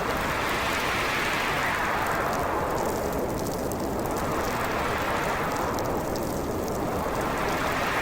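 Howling winter storm wind: a steady rushing noise whose pitch swells up and sinks back in slow gusts, about every four seconds, with faint crackling ticks over it.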